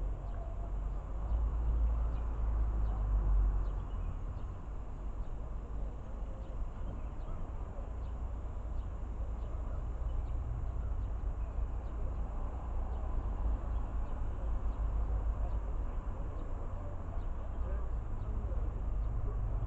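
Low wind rumble on the microphone outdoors, with faint, evenly spaced ticks in the background.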